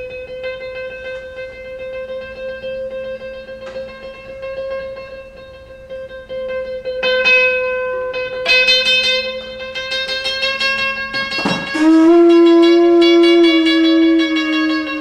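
Electric guitar notes over a struck metal tube chime ringing steadily, with fresh note attacks partway through. About 11.5 s in, a conch shell is blown: a quick upward scoop into a loud, steady low horn tone that dips slightly in pitch near the end.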